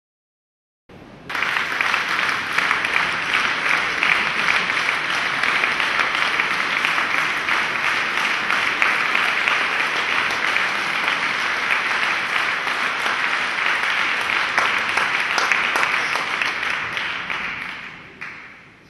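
Concert-hall audience applauding to greet the conductor before a symphony. The clapping starts about a second in, holds steady, and dies away near the end.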